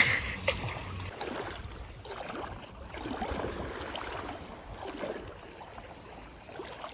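Wet, squelching footsteps, roughly one a second: the squishy walking sound likened to Squidward's.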